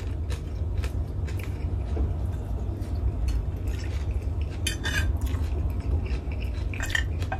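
Metal fork clinking and scraping against a plate while eating, a scatter of short clicks with the loudest pair about five seconds in and another near the end. A steady low hum runs underneath.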